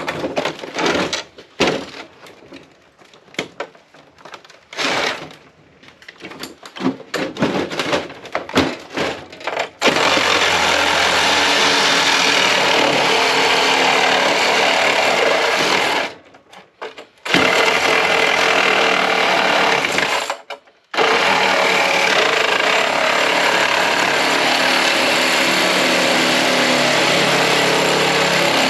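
Irregular short knocks and bursts of tool work on a metal casing, then a power tool running steadily under load, stopping twice for a second or so before running on.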